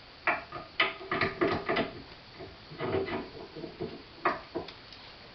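Irregular knocks and clinks of metal corn-mill parts being handled and fitted together, several with a short ringing tone, as a gear and its parts are tried in place.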